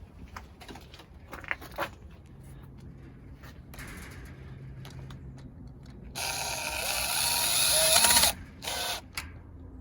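Power drill driving the deadbolt's mounting screws into the door: a couple of seconds of running, then a short second burst, after a few small clicks of parts being handled.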